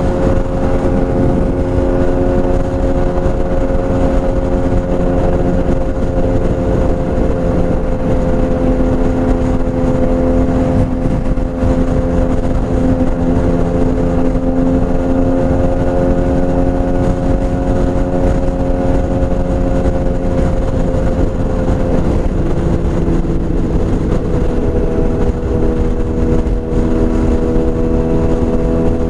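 BMW S1000RR inline-four engine with a full Akrapovič exhaust, running steadily at a near-constant engine speed; the pitch drifts slightly lower about two-thirds of the way through.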